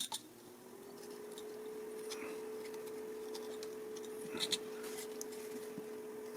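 High-speed micro carver (rotary carving handpiece) spinning up over about the first second, then running at a steady speed with a thin, even whine. A small engraver burr scratches lightly against the wood now and then as it deepens the feather cuts.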